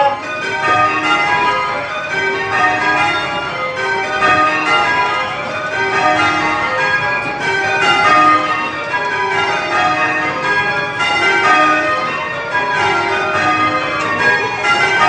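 Church bells rung in changes, one bell after another in an even, unbroken rhythm as the ringers work through spliced methods.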